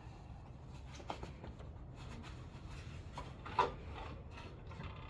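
Faint irregular scraping and small clicks as a plastic LG refrigerator water filter cartridge is cut open, with one sharper click about three and a half seconds in.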